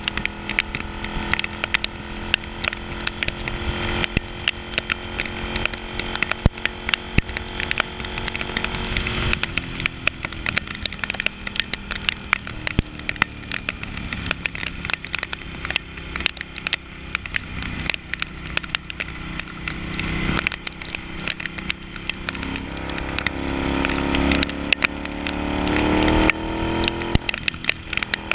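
Ducati Hypermotard's L-twin engine on the move: steady cruising at first, easing off about nine seconds in, then pulling with a rising pitch near the end, broken once by a gear change. A dense crackle of rain and wind striking the camera runs over it.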